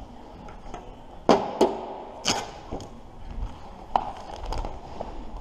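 Vinyl wrap film and a plastic squeegee being handled on a van panel: a few sharp crackling snaps of the film, the loudest in the first half, with lighter rustling and rubbing between.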